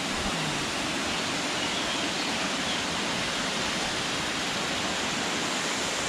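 Mountain waterfall: a steady rush of falling water.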